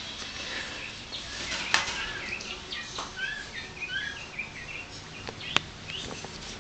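English Cocker Spaniel puppies squeaking and whimpering: a quick run of about a dozen short, high squeaks in the middle, with two sharp clicks.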